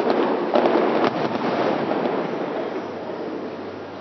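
Fireworks display: aerial shells going off, with a few sharp bangs in the first second or so, then a wash of noise that slowly fades.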